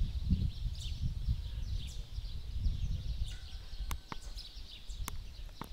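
Small birds chirping and twittering over a low, uneven rumble on the microphone. A few sharp clicks come in the second half.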